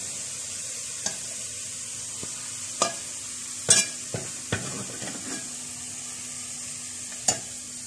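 Hot oil sizzling steadily in a metal pot after frying sliced onions, while a metal spoon lifts the golden onions out, clinking sharply against the metal several times.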